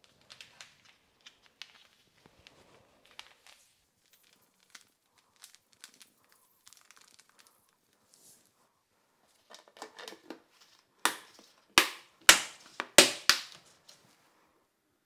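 A dry yeast sachet crinkling and tearing open as the yeast is sprinkled out. Then about eleven seconds in, five loud, sharp plastic snaps as the fermenting bucket's lid is pressed down and clicks shut.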